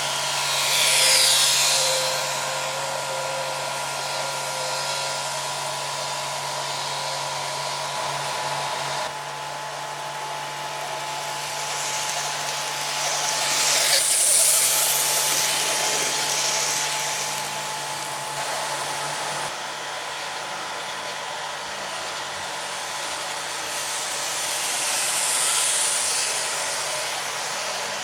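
Model train running round a layout: a steady whirring hiss from its motor and its wheels on the track, with a faint steady whine. It grows louder three times, about every twelve seconds, as the train passes close by.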